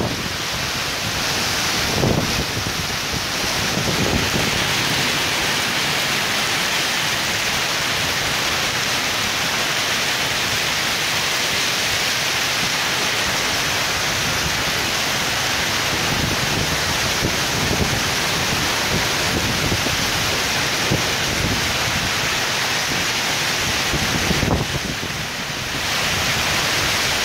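Torrential rain pouring down in a severe wind storm, a loud steady hiss, with gusts of wind buffeting the microphone every few seconds.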